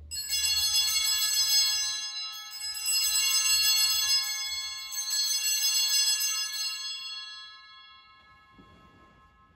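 Sanctus bells rung at the elevation of the host, in three rounds of bright, high ringing that fades away near the end.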